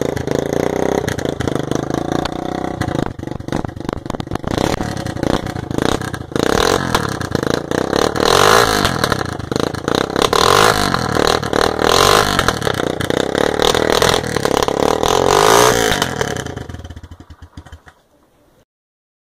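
Suzuki Fiero's single-cylinder four-stroke engine revved hard over and over, with sharp popping and crackling from the exhaust as it fires flame out of the silencer. The revving dies away near the end.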